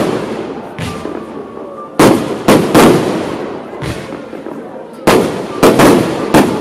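Fireworks display: aerial shells bursting in sharp, loud bangs that echo away, in two quick clusters about two seconds in and about five seconds in, with fainter reports between.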